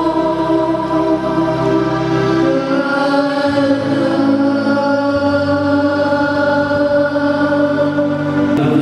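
A small group of women's voices singing a slow hymn in unison with electronic keyboard accompaniment. The notes are held long through the second half.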